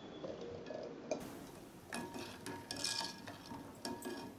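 A ladle knocking and clinking against a pot as eggs are lowered on it into hot water, with irregular knocks and a splash of water partway through.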